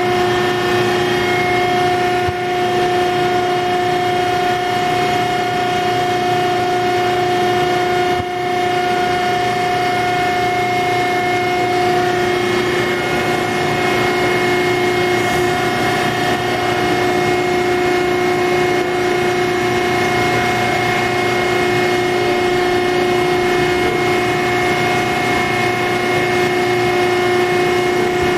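Hydraulic power unit of a 1999 Adira CNC hydraulic press brake running: its 12 HP electric motor and pump give a steady hum with a high, even whine.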